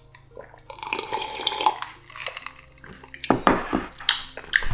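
Ice water sloshing and ice cubes clinking in a glass mug as it is drunk from. From about three seconds in come a few sharp clacks as the mug is set down on a wooden table and the ice knocks against the glass.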